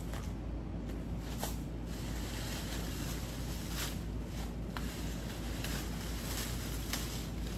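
Leafy storm-downed branches crackling and rustling as they are gathered up by hand, in short irregular strokes. A steady low rumble runs underneath.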